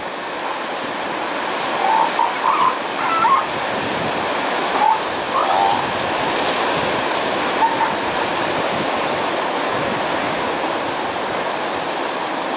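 Ocean surf washing in over rocks and swirling through a rock pool, a steady rushing wash. A few brief higher-pitched calls sound faintly over it in the first half.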